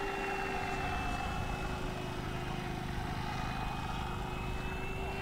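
Electric brushless motor and four-bladed propeller of an FMS F4U Corsair RC model in flight, a steady whine whose pitch sags slightly and comes back up near the end as the model passes overhead.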